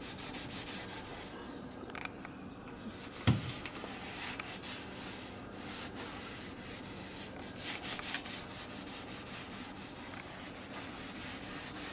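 A cloth rubbing over an oiled wooden cutting board in short repeated strokes as mineral oil is wiped into the wood, a dry hissing scrub. One low thump about three seconds in.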